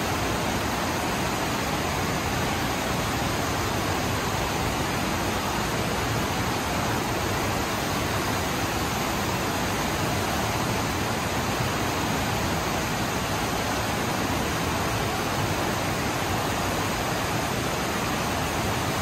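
FlowRider surf simulator running: a thin sheet of water pumped up over its padded wave surface in a steady, even rush.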